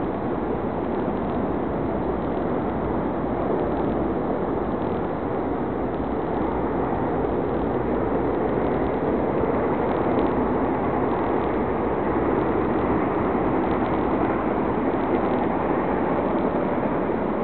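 Steady rush of distant road traffic, with no distinct firework bangs.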